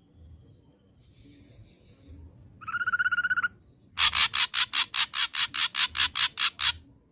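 Ashy drongo calling: a faint buzzy note, then a short rapid warbling trill, then a loud run of harsh, sharply repeated notes, about six a second, for nearly three seconds.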